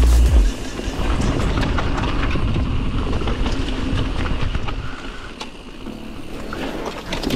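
Full-suspension mountain bike riding down a dry dirt trail: tyres crunching over dirt and dead leaves, with the bike rattling and clattering over bumps. A heavy wind rumble on the microphone fades out about half a second in, and the riding noise grows quieter near the end.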